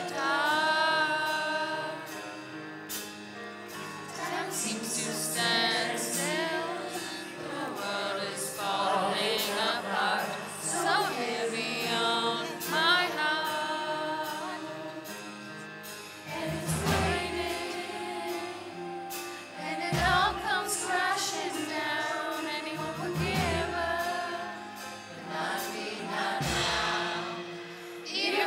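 A female lead singer singing a slow ballad live into a microphone over a band's sustained chords. From about halfway, deep bass hits come in every few seconds.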